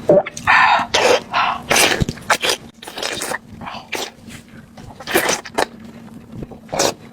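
Wet slurping and sucking as big fat oysters are sucked up from a bowl and chewed, in a string of irregular bursts.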